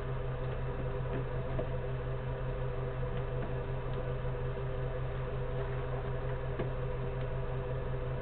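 Steady electrical hum with a low drone and a few fainter higher tones over an even hiss, from equipment in a small enclosed ground control station, with a few faint ticks.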